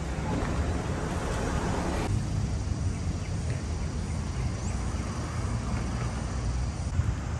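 City street traffic noise with wind rumbling on the microphone; a busier stretch of traffic noise in the first two seconds drops away abruptly about two seconds in.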